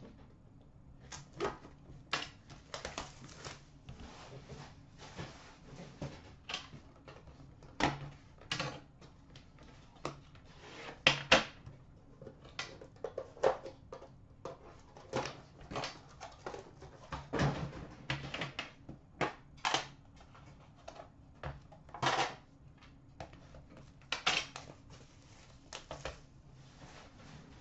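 Irregular crinkling and sharp clicks of cellophane shrink wrap being cut and stripped from a metal trading-card tin, with knocks of the tin and its lid as it is opened and the wrapped box inside is lifted out.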